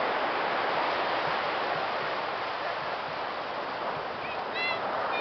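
Steady wash of ocean surf breaking on the beach, with a short high-pitched call near the end.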